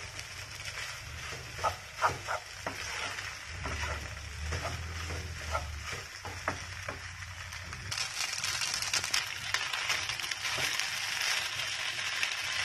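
Noodles stir-frying in a non-stick pan, stirred and tossed with a wooden spatula: light sizzling with occasional scrapes and taps of the spatula. The sizzling grows louder about eight seconds in.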